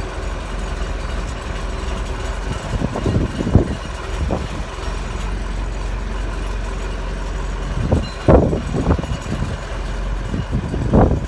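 JCB Loadall telehandler's diesel engine running while its front wheel is steered from side to side, testing the freshly rebuilt trunnion bearings. There is a steady low hum that briefly gets louder about three, eight and eleven seconds in.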